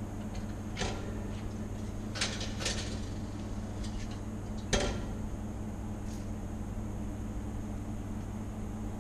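A few light knocks and clicks, the loudest about five seconds in, over a steady low hum.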